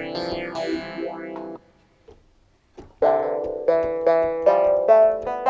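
Yamaha MX49 keyboard synthesizer playing preset sounds. A patch with sweeping pitch effects stops about a second and a half in, and after a short silence a plucked, guitar-like patch plays separate notes.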